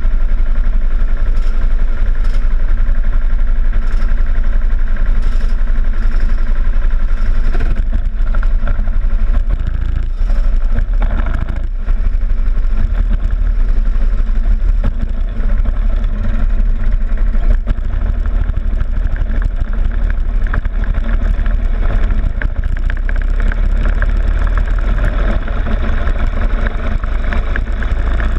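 Rental go-kart engines running in a queue of karts, heard close up from the kart's own front fairing, then the kart accelerating out onto the track near the end.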